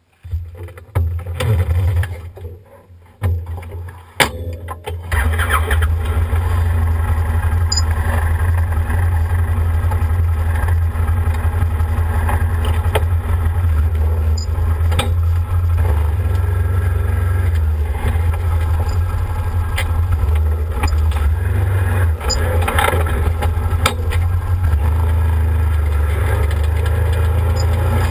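Knocks and bumps as the driver climbs aboard the Arctic Cat Wildcat 1000, with a sharp click about four seconds in, then its 951 cc V-twin engine starts about five seconds in and runs steadily.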